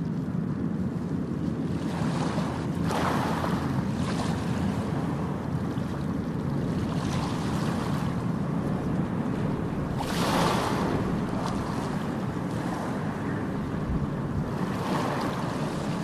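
South China Sea surf washing up a flat sandy beach, its hiss swelling three times a few seconds apart over a steady low rumble.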